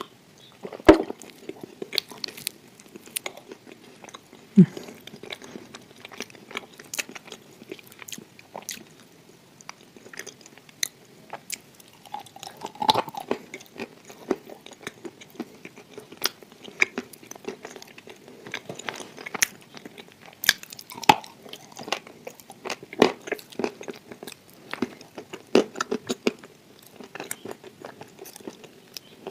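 A woman biting and chewing crunchy lumps of dry clay, with sharp cracks and crunches scattered irregularly through the chewing.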